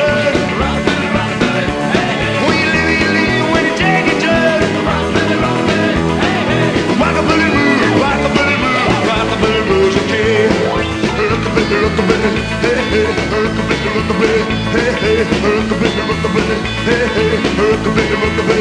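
Rock band playing, a full and steady band sound with no break.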